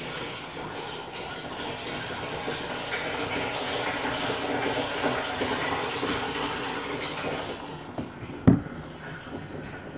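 Water pumped up from a well by a 12 V solar-powered pump pouring from a hose into a plastic water tank, splashing steadily on the surface. The splashing fades near the end, and a single sharp knock comes about eight and a half seconds in.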